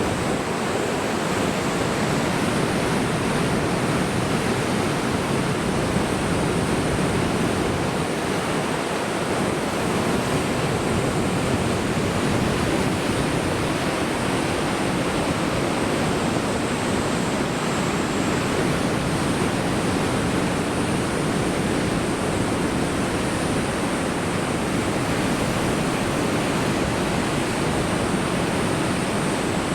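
Heavy typhoon swell breaking on the coast: a loud, steady rush of surf noise with no single crash standing out.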